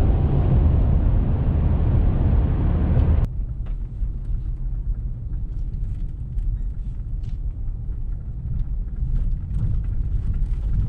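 In-cabin road noise of a vehicle driving: a loud, even tyre-and-engine rumble at highway speed. About three seconds in it cuts to slower driving across a dirt lot, a lower rumble with scattered small ticks.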